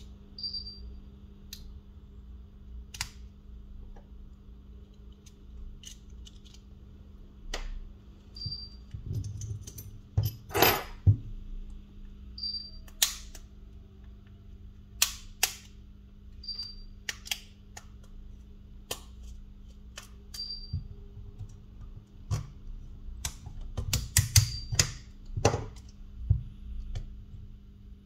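Small hand tools clicking and tapping on a smartphone's parts during a repair, in irregular sharp clicks, with a longer noisy sound about ten seconds in and a quick run of clicks near the end.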